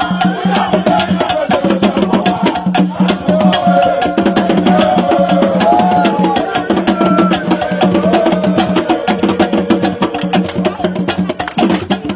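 Percussion-led music: fast, dense clicking beats over a steady low held note, with voices singing.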